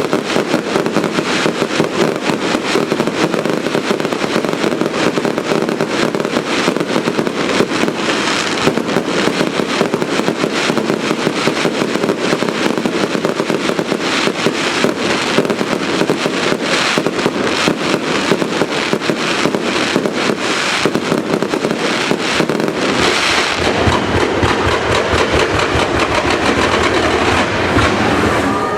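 Fireworks display: a dense, unbroken run of rapid bangs and crackles, packed too close to count. About three-quarters of the way through, a deeper layer of heavier bangs joins in.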